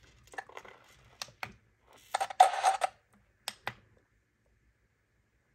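Light clicks of a portable TV's front-panel buttons being pressed, a few scattered presses, with a louder short noisy burst about two seconds in.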